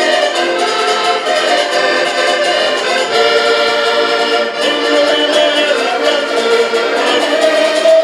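An ensemble of diatonic button accordions playing a folk tune together, instrumental, with many held reed tones sounding at once.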